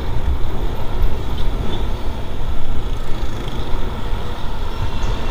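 Wind buffeting a helmet-mounted action camera's microphone while riding a Yamaha NMAX 155 scooter at about 40 km/h in traffic, with the scooter's engine and road noise beneath.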